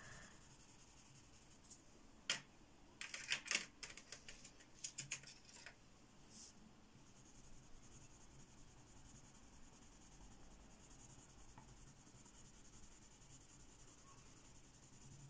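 A few light clicks and taps, then the faint, steady scratch of a colored pencil shading a swatch on paper.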